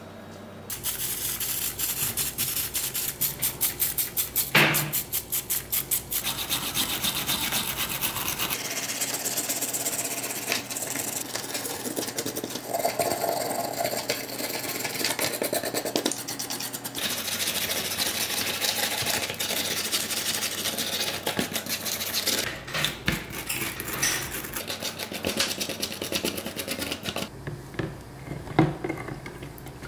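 Steel wire brush scrubbing the old paint off a 1:18 scale model car's metal body, a dense scratching with fast back-and-forth strokes. Near the end it gives way to a few splashes as the part is moved in a tub of water.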